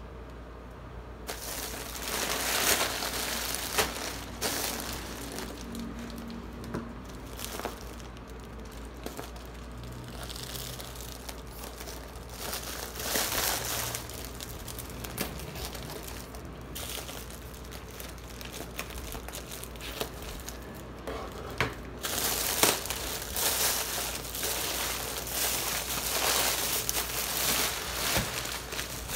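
Thin plastic mailer bag crinkling and rustling as it is handled and cut open with scissors, then bubble wrap crackling as the wrapped bundle is pulled out, loudest over the last several seconds.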